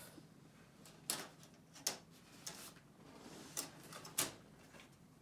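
A handful of light, scattered clicks and knocks from laptop parts being handled during reassembly, about five in all.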